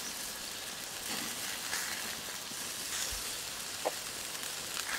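Chicken thighs basted with barbecue sauce sizzling over hot coals on a Weber charcoal kettle grill, a steady hiss with a few faint crackles. A short sharp click comes about four seconds in.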